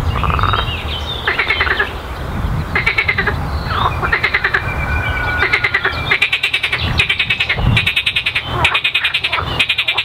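Frogs calling from a pond: bursts of rapid, rattling croaks, one after another, that come thicker and louder from about six seconds in, into a dense chorus.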